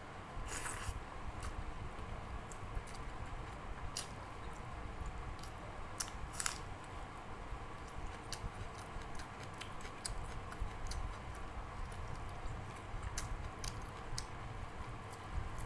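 Close-up eating sounds of someone eating rice and dal by hand: wet chewing and mouth clicks, with soft squishes of fingers mixing rice on the plate. Short clicks are scattered throughout, with a few louder bursts about half a second in and around the middle.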